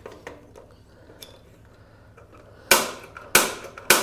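Piezo igniter of a Mr. Heater portable propane heater snapping three times, about half a second apart in the second half, as the control knob is turned to spark the pilot. Faint ticks from the knob come before the snaps.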